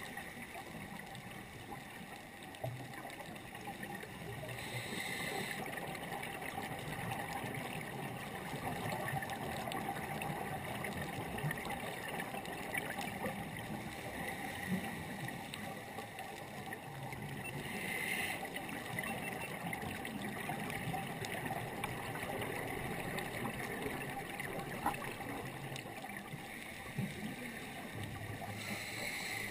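Underwater ambience heard through a diving camera: a steady hiss with fine crackle, broken by three short hissing breaths from a scuba regulator about twelve seconds apart.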